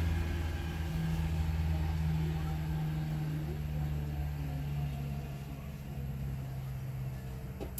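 An engine running with a steady low hum that fades gradually over the last few seconds.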